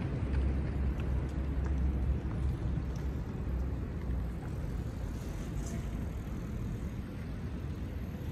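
Low outdoor rumble, loudest in the first couple of seconds and then easing off, with a few faint ticks.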